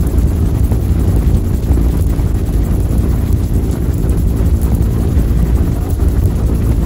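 Bell UH-1 Huey helicopter in flight, heard from on board: the steady, loud drone of its two-bladed main rotor and turbine engine, with wind noise on the microphone.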